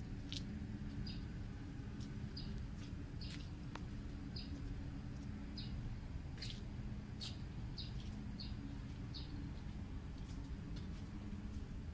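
A small bird chirping, short high chirps about once a second, over a steady low hum, with one sharp click a little under four seconds in.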